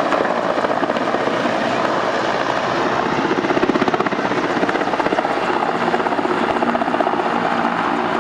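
Helicopter rotor and engine sound: a steady, fast, even rotor chop over a dense engine noise.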